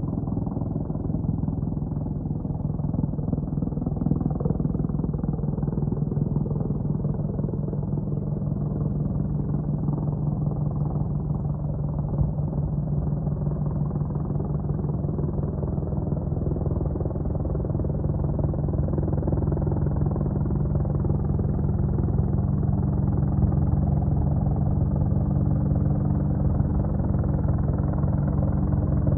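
Boeing AH-64 Apache attack helicopter in flight, its rotor beating fast and steadily over a low hum. It grows a little louder over the second half.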